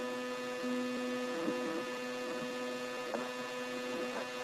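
Steady electrical hum with a buzz of evenly spaced overtones, unchanging, with a few faint brief sounds over it.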